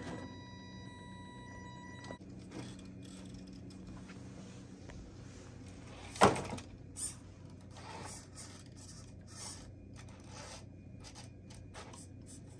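RC rock crawlers working over loose rocks: a steady high electric whine stops about two seconds in, then one loud sharp knock of plastic and rubber against rock about six seconds in, a smaller knock just after, and scattered light clicks and scrapes of tyres and chassis on stone near the end.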